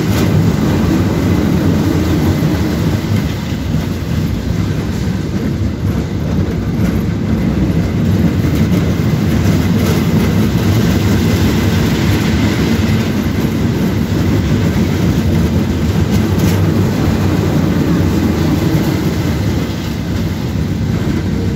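Roller coaster train running along its track, heard from a seat on board: a steady, loud rumble and clatter of the wheels on the rails.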